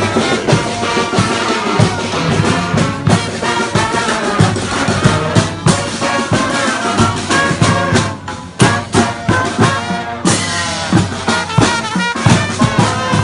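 Street brass band playing, horns over drums with a steady beat. The music changes abruptly about ten seconds in.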